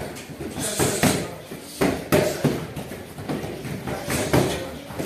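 Punches and kicks landing on a handheld kick shield: sharp slaps and thuds at an uneven pace, about five or six over a few seconds.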